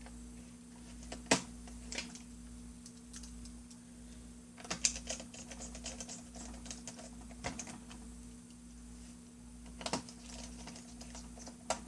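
Scattered light clicks and taps of plastic laptop parts being handled and fitted, as a Toshiba M400's memory cover is set in place; the busiest run of clicks comes a little before halfway.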